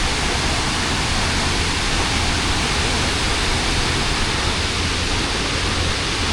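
Steady, even rushing noise of the Tumpak Sewu waterfall's falling water, with a deep low rumble under it.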